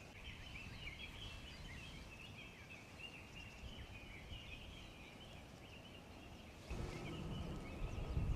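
Faint birds chirping continuously in the forest, many small overlapping calls. About seven seconds in, a louder low rustling noise comes in under them.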